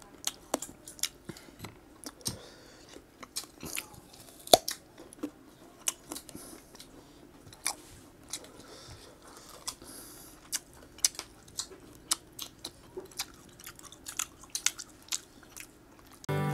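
Raw guava being bitten and chewed close to the microphone: irregular crisp crunches and mouth clicks, with one sharp loud crunch about four and a half seconds in.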